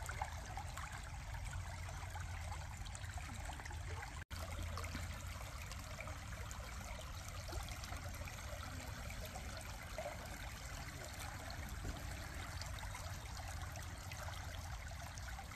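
Sembusek pastries deep-frying in hot oil, a steady sizzle with fine crackling. The sound breaks off for an instant about four seconds in.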